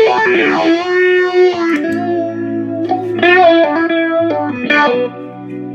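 Electric guitar played through a wet/dry rig of a Fender Blues Junior and a Peavey Bandit Red Stripe amp. It plays a string of picked notes and chords, each ringing out for about a second before the next.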